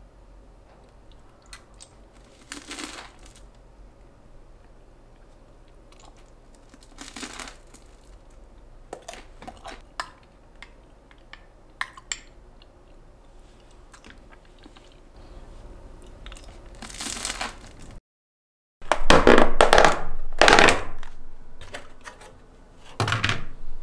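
Eating and handling sounds: scattered small crunches, clicks and rustles. After a brief cut-out in the sound, several louder handling noises.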